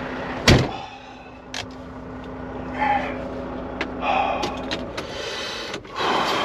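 Inside a truck cab: one loud thump about half a second in, then small clicks and knocks of things being handled. A steady low hum runs underneath and stops a little before the end.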